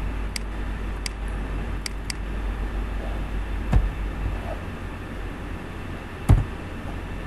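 Steady low background rumble. Over it come a few light clicks in the first two seconds, as the entry field is edited, and two louder dull thumps about four and six seconds in.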